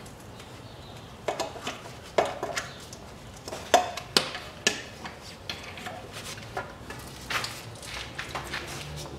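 Hand tools and a metal pipe clinking and knocking against engine parts while unbolting beneath the intake manifold. The clinks are irregular and sharp, starting about a second in, loudest around the middle.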